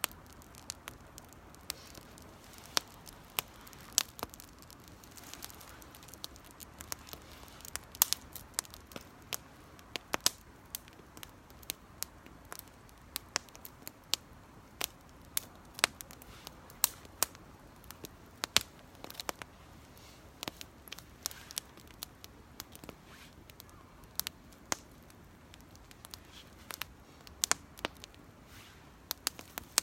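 Small campfire crackling: irregular sharp pops and snaps, several a second and some much louder than others, over a faint hiss.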